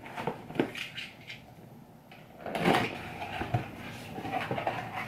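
A cardboard subscription box being handled and opened by hand: scattered taps, knocks and scrapes of cardboard, with a louder rustling scrape about two and a half seconds in as the lid comes up.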